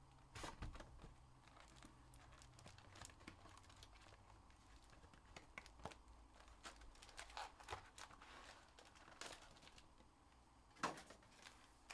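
Faint crinkling and rustling of foil-wrapped trading-card packs and a cardboard hobby box as the box is opened and the packs are taken out and stacked, with scattered light clicks and a slightly louder rustle near the end.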